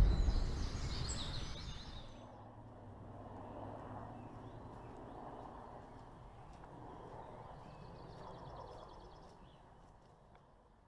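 A deep rumbling whoosh from the GoPro logo intro fades out over the first two seconds. Then quiet outdoor background on a wooded path, with birds chirping and a short trill of repeated high notes near the end.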